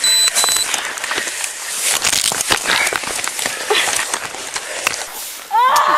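Scuffling during a physical struggle: clothing and gear rubbing against a body-worn camera's microphone, with many irregular clicks and knocks and a brief high tone at the very start. About five and a half seconds in, a woman starts a loud, high-pitched scream.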